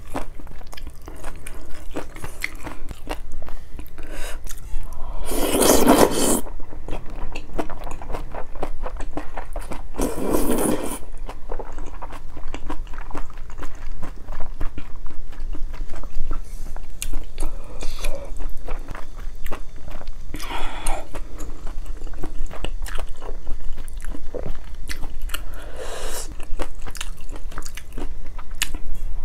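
Close-miked eating of malatang: wet chewing with many small mouth clicks, broken by four slurps of noodles and broth, the loudest about five seconds in.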